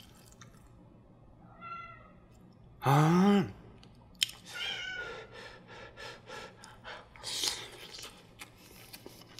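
A house cat meowing, with short, faint, high calls about two and five seconds in. About three seconds in comes a louder, lower rising voice sound, and there are small clicks of eating later on.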